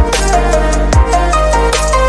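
Electronic background music: held notes over a deep drum hit at the start and another about a second in.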